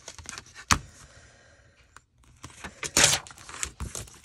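Paper and craft pieces being handled: scattered sharp clicks and taps, with a louder rustle about three seconds in.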